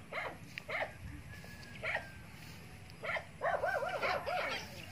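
An animal calling: short pitched cries every second or so, then a quick wavering run of calls near the end.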